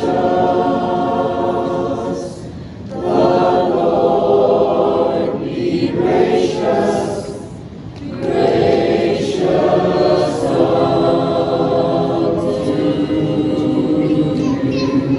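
A group of people singing a hymn together, holding long sung notes, with two short pauses between lines.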